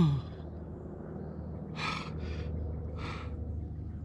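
A person breathing hard: a falling vocal sound at the very start, then three or four short breathy puffs and sniffs in the middle. A steady low hum runs underneath.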